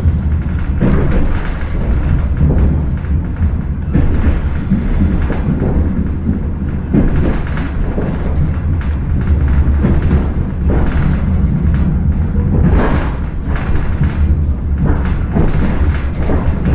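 Cabin of a DR1B diesel multiple unit under way: a loud steady low rumble from the engine and running gear, with knocks and rattles from the car at irregular moments.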